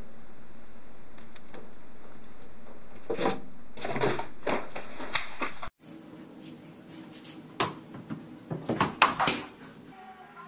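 Irregular sharp taps and knocks, bunched in quick clusters near the middle and again in the last few seconds.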